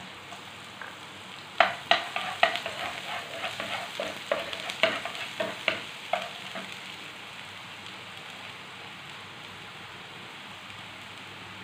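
Chopped onion and garlic sizzling in hot oil in a frying pan. Between about one and six seconds in, a wooden spoon knocks and scrapes as it pushes them from a glass bowl and stirs them; after that there is only the steady sizzle.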